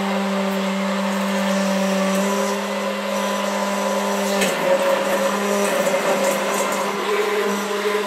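Blender motor running steadily as it churns a thick cashew-nut cream that still needs help to turn over. Its pitch dips and wavers about halfway through.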